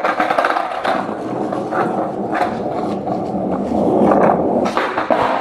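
Skateboard wheels rolling over concrete with a continuous rumble, with a few sharp clacks from the board along the way.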